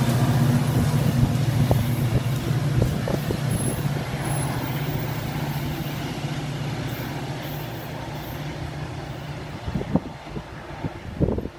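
Metra EMD F40PH diesel locomotive pushing its commuter train away under power: a steady low engine drone that fades as the train recedes. A few low bumps near the end.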